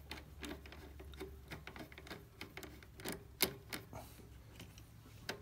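Faint, irregular small clicks and light metal rattles from a pedal extender's bracket and bolts being handled and tightened by hand onto a gas pedal, with one sharper click about three and a half seconds in.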